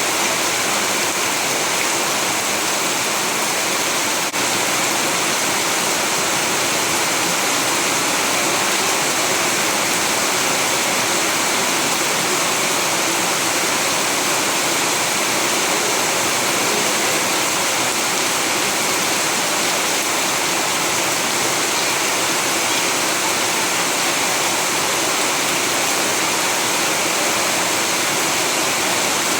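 Steady heavy rain, an even unbroken hiss of falling water, with one brief tick about four seconds in.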